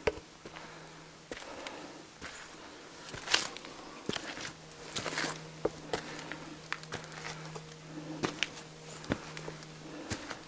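Irregular footsteps crunching on a dirt and stony trail, over a steady low insect buzz that breaks off briefly about a second in.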